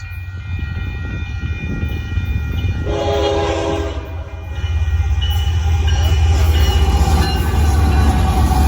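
Union Pacific diesel freight locomotive sounding its air horn, a chord of several steady notes, loudest about three seconds in. Under it the deep locomotive rumble grows louder from about halfway through as the train comes by.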